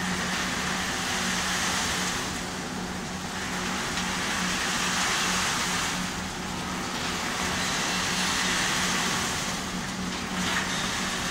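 Popcorn caramelizer machine running hot: a steady motor hum under a rushing hiss of popcorn tumbling through the turning stainless-steel drum, swelling and dipping every three to four seconds.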